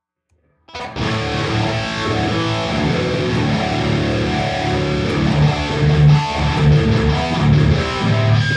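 Electric guitar played through a Boss Katana Gen 3 212 amp, with the amp's treble and mids turned all the way up. The playing starts about a second in and stops right at the end.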